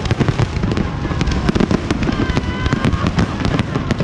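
Aerial fireworks display: a continuous barrage of low booms with dense crackling and rapid sharp pops.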